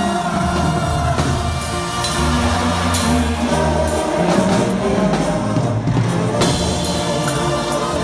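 Live banda music, amplified: sousaphone bass line, tambora bass drum, snare drum and brass playing, with a man singing.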